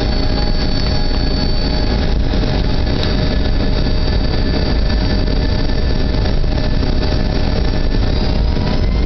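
Boeing 757-200's Rolls-Royce RB211 turbofans heard from inside the cabin: a steady, loud engine noise with a whine in it as the aircraft lines up on the runway. Near the end the whine begins to rise as the engines spool up for the takeoff roll.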